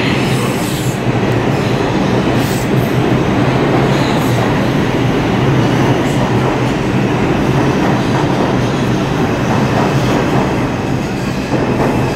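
R142 subway train pulling into the station, its cars running past along the platform with a steady, loud noise of wheels on the rails.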